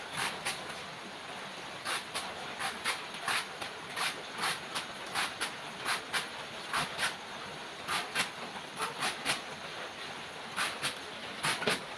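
A knife chopping through a banana tree stem into slices, many crisp strokes in quick irregular runs of two or three, over a steady hiss.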